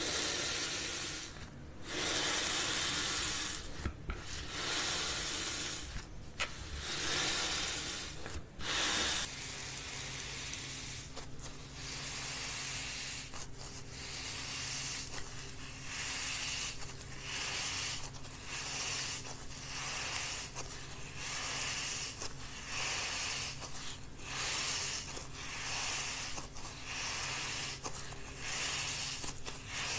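Textured slime with a coarse, granular coating being pressed and squeezed between fingers, giving a crackling hiss. It comes in long stretches at first, then as short squeezes about once a second in the second half.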